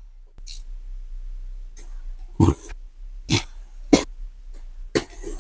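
Cardboard shipping box being opened by hand: packing tape slit with a small cutter and the cardboard scraped and rustled, in a series of short, irregular scrapes and crackles about a second apart.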